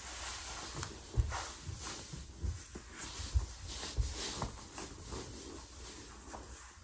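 Fabric rustling and irregular soft thumps as a person lying on a wooden floor wriggles and tugs a fabric mermaid tail up over the hips.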